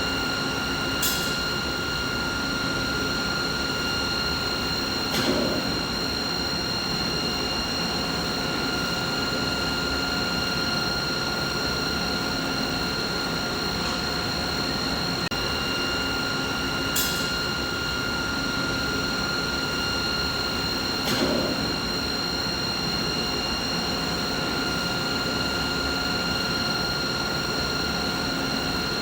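Steady machinery hum: a constant noise bed with a high whine on several fixed tones. Four brief clicks sound through it, in two pairs about four seconds apart.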